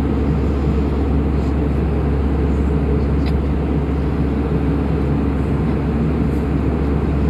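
Airliner cabin noise in flight at altitude: a steady rush of air and engine noise with a strong low drone.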